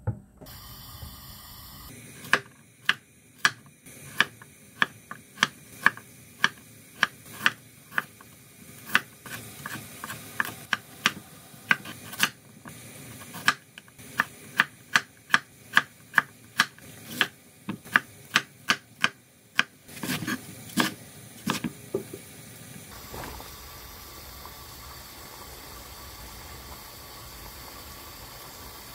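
A cleaver chopping vegetables on a wooden cutting board, a steady run of sharp knocks at about two a second for some twenty seconds. After that, a pot of water bubbling at a rolling boil.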